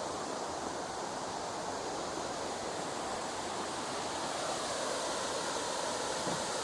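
Steady rush of a mountain stream flowing below the bridge, growing slightly louder about two-thirds of the way in, with a couple of faint knocks near the end.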